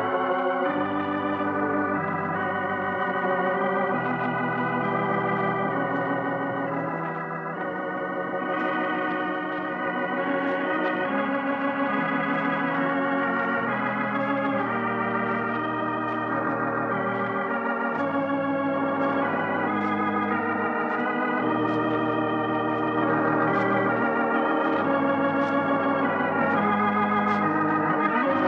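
Organ music, slow sustained chords with a wavering vibrato that change every second or two. It is the radio program's closing theme, played out after the sign-off.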